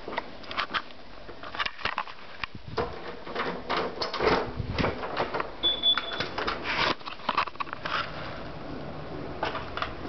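Irregular clicks, knocks and rattles of a door being unlatched and opened by hand, with one brief high squeak about six seconds in.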